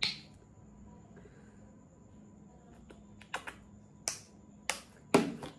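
A plastic lotion bottle being handled and its cap worked: a short click at the start, then a run of sharp plastic clicks and taps over the last two seconds, the last one the loudest.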